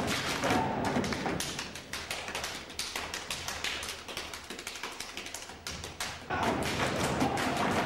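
Folk dancers' feet stamping and tapping rapidly on the stage floor in a fast rhythm, with the band nearly dropping out for a few seconds. The folk band comes back in loudly about six seconds in.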